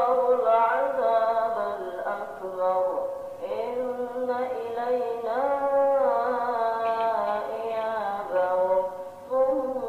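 A solo voice chanting a slow, ornamented melody, with long held notes that glide up and down in pitch.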